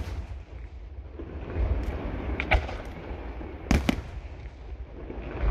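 Aerial firework shells from a Senatore Fireworks display bursting in sharp bangs: one at the start, a quick pair about two and a half seconds in, and another pair just before four seconds. A low rumble runs between them.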